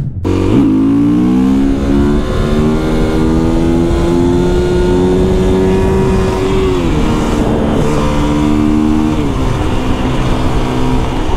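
Husqvarna FE 350 single-cylinder four-stroke enduro engine accelerating hard. The revs climb steadily for about six seconds, drop at a gear change, hold, then drop again at a second gear change about nine seconds in.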